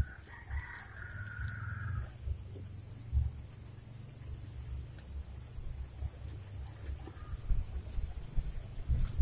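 Steady high-pitched insect chorus from the swampy undergrowth, with a single drawn-out call for about a second and a half near the start, over low, irregular rumbling and knocks of handling noise.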